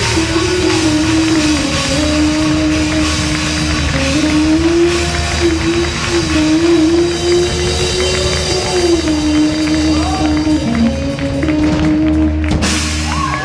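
Live rock band playing: drums and cymbals under a held melody line that steps between notes, with a brief break near the end.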